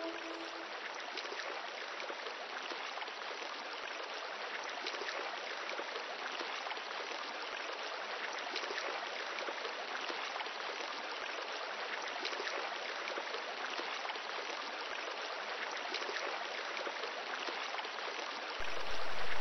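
Steady running water, like a flowing stream, with no music over it. Near the end it turns louder and fuller for about a second, then cuts off suddenly.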